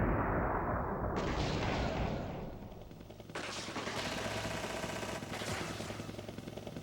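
Synthesized gunfire sound effects from a Roland SC-88 sound module (Kumyoung Chorus 88 karaoke machine): a noisy blast that dies away, a second one about a second in, then a rapid rattle of machine-gun fire from about three seconds in.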